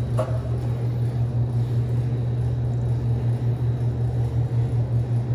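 Atosa two-door reach-in refrigerator running, a steady low hum from its motors with the evaporator fans on.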